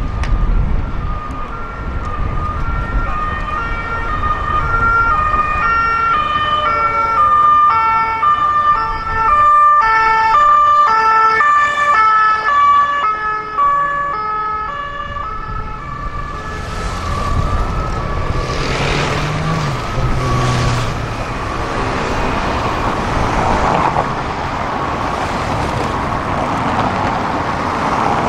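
French police two-tone sirens alternating high and low notes, with more than one siren overlapping at different pitches. They fade out about halfway through, leaving city traffic noise and passing car engines.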